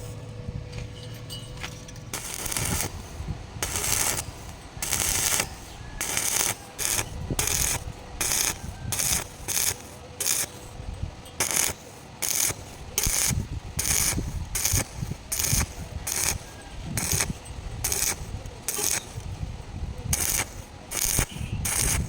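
Rhythmic scraping strokes on metal, about one to two a second, each a short harsh rasp with a brief pause between, coming faster after the first few seconds.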